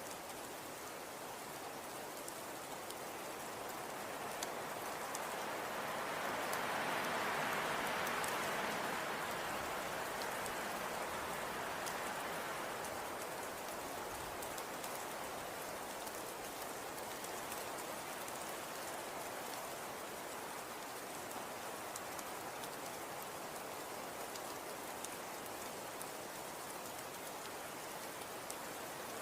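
Wind with blowing snow: a steady hiss flecked with fine ticks of snow or ice striking, swelling in a gust a few seconds in and easing off again.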